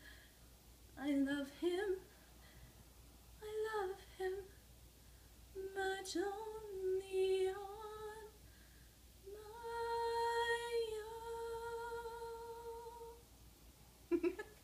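A woman singing unaccompanied: a few short phrases with pauses between them, then one long held final note.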